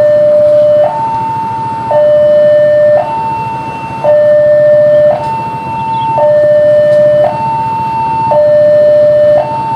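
Railway level crossing warning alarm sounding a loud two-tone electronic signal, switching between a high and a low tone about once a second, warning of an approaching train.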